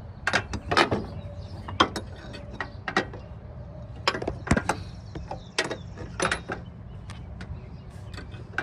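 Irregular sharp metallic clicks and clacks of hand tools and mower parts being worked, about fifteen over several seconds, over a steady low hum.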